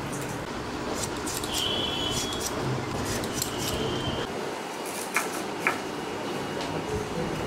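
Kitchen prep sounds: light clinks and scrapes of utensils, with two sharp knocks a little past the middle.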